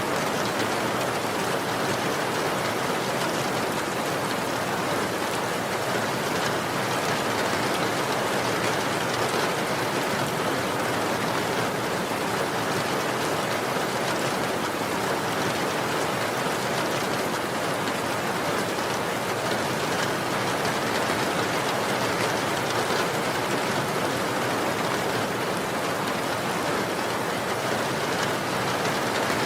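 Steady, even rainfall: a constant hiss of rain falling on surfaces, with no thunder or distinct drops standing out.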